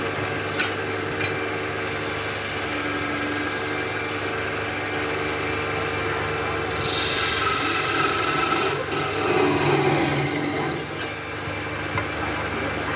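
Wood being rubbed and scraped over a steady low hum, with a few sharp clicks. The scraping grows louder for a few seconds past the middle.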